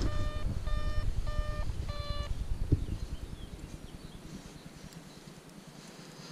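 Electronic beeper sounding four short beeps at one steady pitch, a little under two a second, stopping a little over two seconds in, over a low rumble that fades away.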